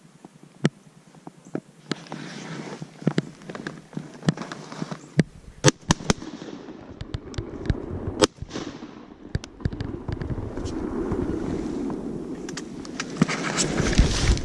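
Someone walking through dry brush and reeds: irregular sharp snaps and cracks of twigs and stems over a rustling of vegetation that grows louder in the last few seconds.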